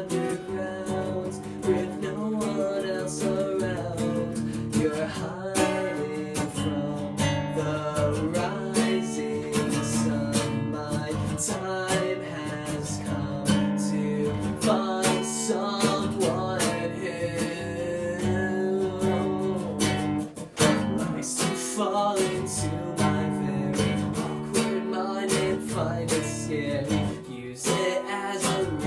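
Acoustic guitar strummed in the instrumental passage of a song, with a melody line over the chords.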